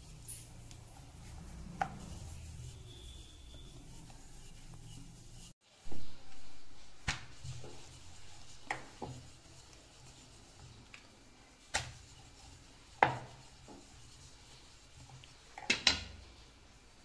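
A wooden rolling pin rolling out a stuffed radish paratha on a round wooden board: a low rubbing as it rolls. The sound drops out briefly about halfway through, then comes a series of sharp wooden clacks every second or two, two of them close together near the end.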